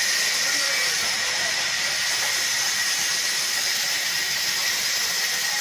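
Sawmill band saw cutting through a log: a steady hiss with a thin high whine, holding an even level.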